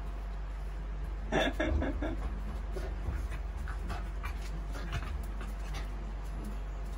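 A Shiba Inu and a raccoon play-wrestling: dog panting and scuffling with scattered light clicks, and one short, louder cry about a second and a half in.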